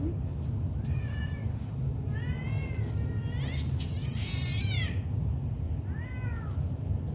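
Cat meowing in complaint while its fur is combed: about five drawn-out, rising-and-falling meows. The fourth, about four seconds in, is a harsh, rasping open-mouthed yowl.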